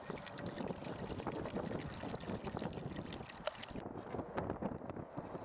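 Water pouring and trickling from a plastic container into a plastic measuring jug.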